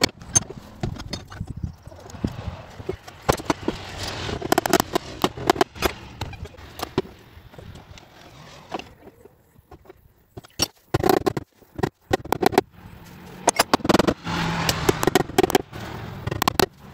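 Irregular clusters of sharp metal knocks and taps with scraping between them: hand work on the bent sheet steel of a truck cab part being straightened. There is a short lull about nine seconds in.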